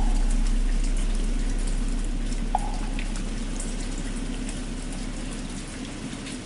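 Steady rain with the low hum of a struck bell slowly dying away. Two short hollow knocks of a wooden fish (muyu) come, one at the start and one about two and a half seconds in.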